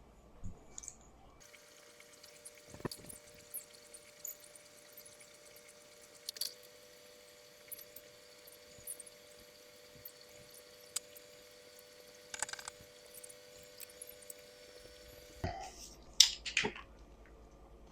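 Scattered light clicks and taps of Warhammer miniatures being picked up and set down while they are sorted, the loudest cluster near the end, over a faint steady hum for most of the time.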